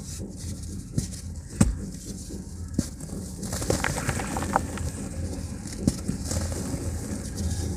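Dry cement chunks being broken and crumbled by hand, with a handful of sharp snaps and a run of gritty crackling as powder and small pieces drop into a plastic tub. A steady low hum runs underneath.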